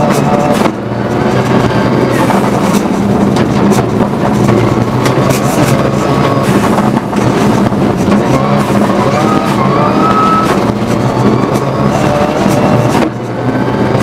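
Rally car engine heard from on board, running hard at speed with tyre and road noise. The revs rise around the middle, and the loudness drops briefly, as at a gearshift or throttle lift, about a second in and near the end.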